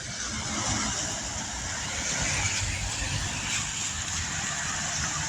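Road traffic: cars driving past, a steady rush of tyre and engine noise that builds over the first second or two and then holds.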